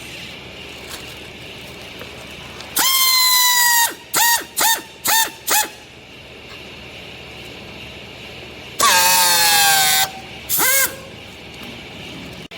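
A horn sounding in a sequence of loud honks: a blast of about a second, three short honks in quick succession, then a longer blast that sags in pitch and a final short honk.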